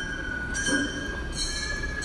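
Soundtrack of sustained high metallic ringing tones over a low rumble, with a new chime-like note setting in about every second.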